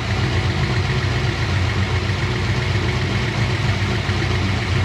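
Pontiac GTO's LS V8 idling steadily.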